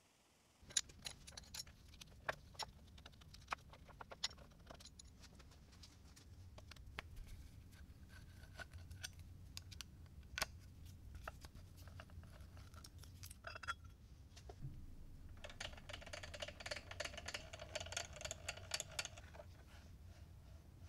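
Scattered light metallic clicks and taps from hand tools and parts as the cross slide of a 1939 LeBlond Regal lathe is taken apart with a T-handle hex key. A few seconds before the end there is a stretch of continuous metal scraping as the slide comes off its ways. A faint low hum runs underneath.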